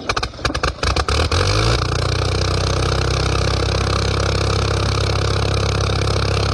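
An engine catching with a few uneven firing strokes, then settling after a second or two into steady running.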